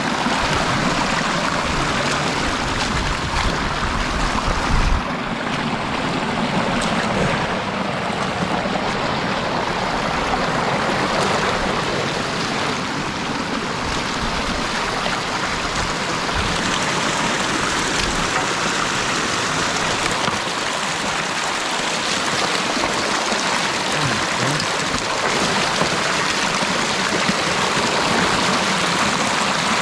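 Creek water rushing and splashing through a gap opened in a beaver dam, a steady rush, with a dull thump about five seconds in.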